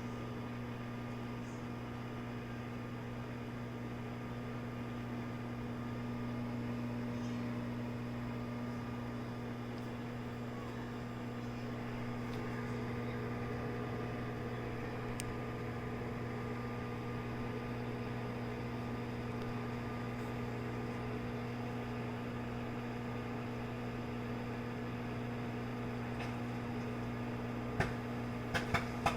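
Whirlpool microwave oven running with a steady electrical hum. Near the end come a few sharp pops, the first popcorn kernels bursting in the bag.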